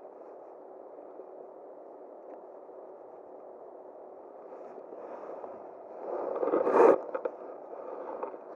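Steady rush of flowing river water. About six seconds in a louder noisy surge builds and then cuts off suddenly.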